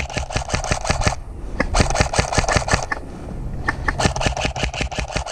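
Custom M16 electric airsoft gun firing full-auto, three bursts of about eleven shots a second with the gearbox whining under each. The first ends about a second in, the second runs from about a second and a half to three seconds, and the third starts about four seconds in.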